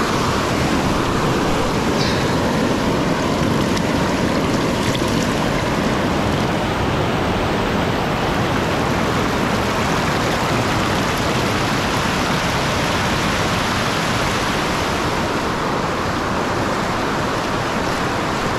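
Shallow river rushing fast over flat rock ledges in small white-water cascades: a loud, steady wash of water close by.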